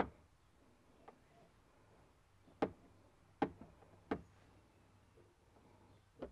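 A handful of faint, sharp taps and clicks on the plastic interior trim panel as it is handled and marked up with a pen. The clearest three come in the middle, about a second apart.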